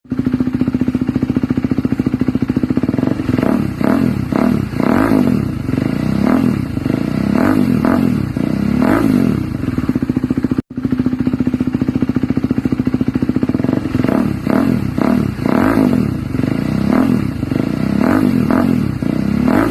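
KTM Duke 200's single-cylinder engine through an SC Project S1 aftermarket exhaust, idling and being blipped by the throttle again and again. Each blip is a quick rise and fall in pitch. It cuts out for a moment about halfway through, then idles and blips again in the same way.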